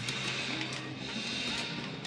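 Background music, with a held low bass note under it.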